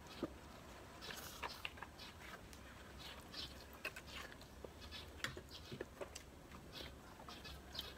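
Faint eating sounds of people eating with their hands: scattered small clicks and smacks of chewing, lips and fingers on food.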